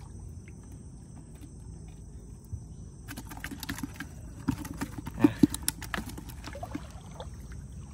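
Wet gill net being pulled from pond water by hand and fish worked free of the mesh: water splashing and dripping, with irregular sharp slaps and knocks that grow busier about halfway through and peak a little after.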